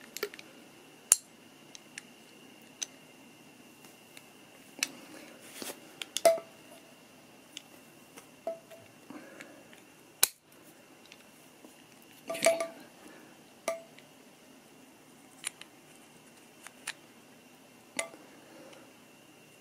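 Steel parts of an SMK QB78DL air rifle clicking and clinking against each other as they are handled and fitted together. The sounds are scattered sharp clicks and taps, a few with a short metallic ring.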